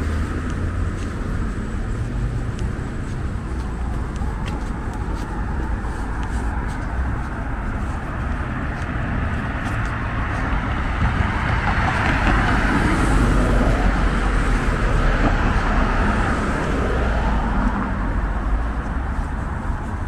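Steady road traffic on a city street, tyres and engines going by. A passing vehicle swells the noise louder about halfway through, and it eases again near the end.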